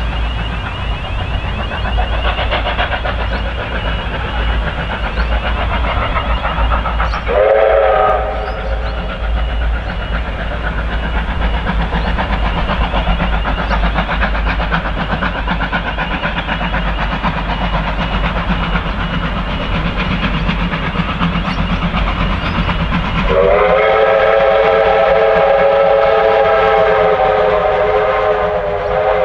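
Steam locomotives working hard as they pull away, with a continuous rumble and rapid exhaust chuffing. A chime steam whistle sounds a short blast about seven seconds in and a long blast of nearly six seconds starting near the end.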